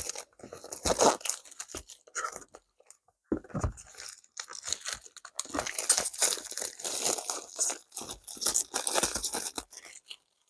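Plastic shrink-wrap being torn and crinkled off a new tarot deck's box: irregular crackling rustles, with a short pause about three seconds in.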